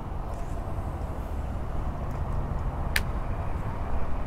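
Steady rumble of highway traffic, with one sharp click about three seconds in.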